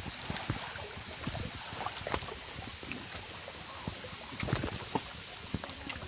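Water and mud splashing and gurgling in irregular small splashes and knocks, a cluster of louder ones about two thirds of the way in, over a steady high-pitched hiss.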